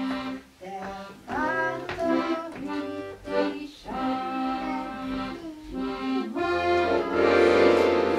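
Music: a slow accordion melody of held and sliding notes, swelling louder near the end.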